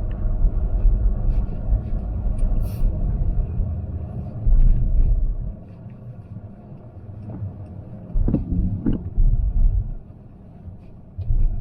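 Low rumble of a car driving, heard from inside the cabin, rising and falling and dropping away twice, around six seconds in and again near ten seconds, with a few short knocks in between.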